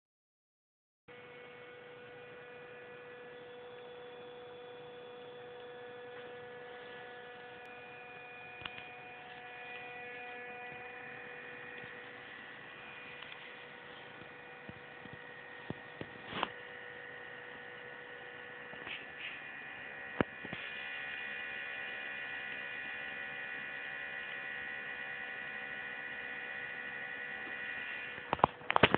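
Small DC fan motor of an Arduino Nano temperature-controlled fan circuit running with a steady electrical whine of several held tones, a little louder about two-thirds through. A few light knocks from handling the wiring, more near the end.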